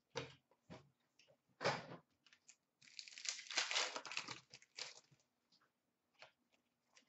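Trading card pack wrapper crinkling and tearing as it is opened by hand, with cards rustling. There are a few short rustles at first, a denser crackly stretch in the middle, then a few light ticks.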